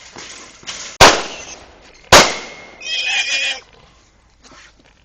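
Two pistol shots about a second apart, fired at feral hogs in a trap. A wounded hog squeals briefly just after the second shot.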